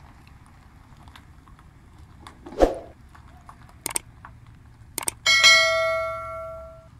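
Subscribe-button animation sound effect: a whoosh about two and a half seconds in, then mouse clicks, then a bell ding that rings out and fades over about a second and a half. A low steady background hiss runs underneath.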